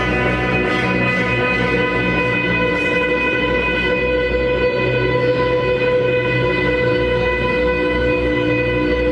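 A live band playing loud, sustained guitar tones that hold steady over a continuous low drone.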